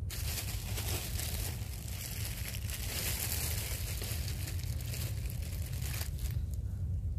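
Close crinkling and rustling that starts abruptly and dies away after about six seconds, over a steady low rumble.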